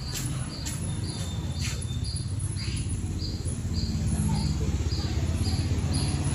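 Outdoor ambience with a steady low rumble, a few sharp clicks early on, and a short high chirp repeating about twice a second from about halfway through.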